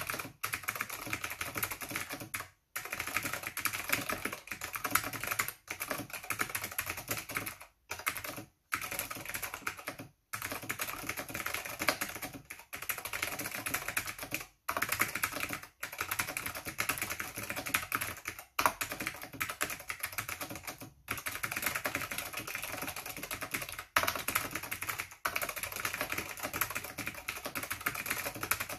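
Continuous fast typing on an Acer 6012 keyboard with clicky Alps SKCM white switches: a dense run of keystroke clicks, broken by short pauses every few seconds.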